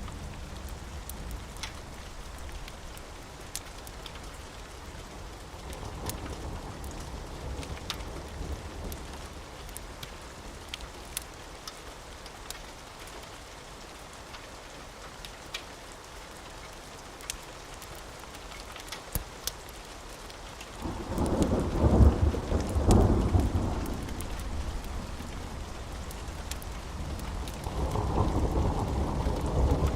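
Steady rain with scattered sharp crackles of a wood fire. Thunder rumbles loudly for about three seconds about two-thirds of the way in, and again near the end.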